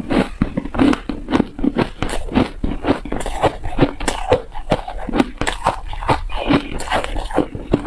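Ice being chewed in the mouth, close to the microphone: dense, irregular crunching and cracking as the pieces break between the teeth.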